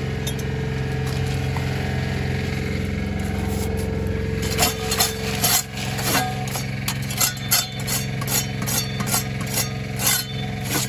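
Steel brick trowel scraping and tapping on concrete blockwork and the concrete base: a quick irregular run of sharp scrapes and knocks starting about four seconds in. The steady hum of an engine running sits under it throughout.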